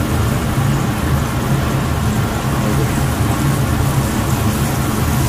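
Two flour-coated whole fish frying in a square pan of hot oil: a steady sizzle, with a low steady rumble underneath.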